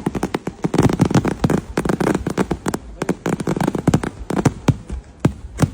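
Fireworks going off in a rapid, dense run of sharp bangs and crackles that thins out about four seconds in to a few separate bangs.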